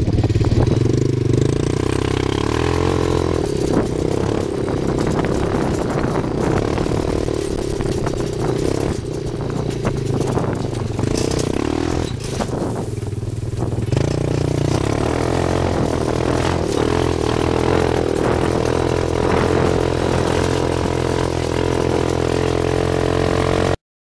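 Roketa 250cc buggy's CN250 single-cylinder four-stroke engine running through a Devil carbon fiber muffler while driving, with a smooth, deep exhaust note that rises and falls with the throttle, and some clattering from the bouncing chassis. The sound cuts off abruptly near the end.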